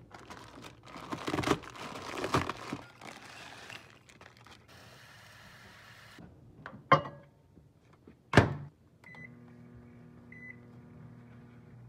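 Plastic instant-noodle packet crinkling, then tap water running into a bowl of noodles. Two loud thunks follow, then two short keypad beeps as a Hamilton Beach microwave oven starts and runs with a steady hum.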